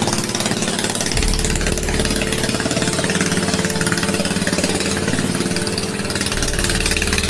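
Motorboat engine running steadily, fast and rattly, over the rush of fast floodwater; the boat is pushing against a strong flood current that it lacks the power to beat.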